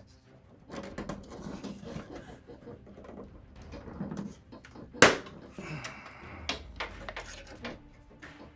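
Metal I/O backplate being pressed into a computer case's rear opening: light clicks and rattles of sheet metal, with one sharp snap about five seconds in as it seats.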